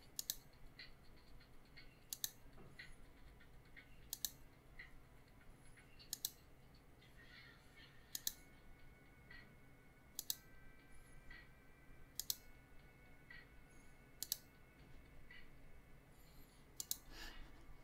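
Computer mouse clicking sharply about every two seconds, tapping in a tempo on a tap-tempo panel, with faint regular ticking between the clicks.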